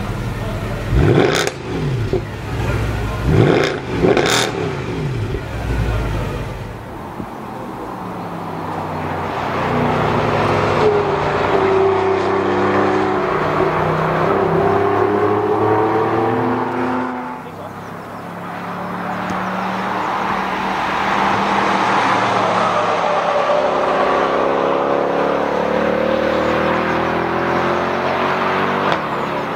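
Mercedes-Benz C63 AMG estate's naturally aspirated V8 revved sharply three times while standing still. Then it is heard being driven hard on a race track, the engine note rising under acceleration, dropping briefly about seventeen seconds in, and rising again.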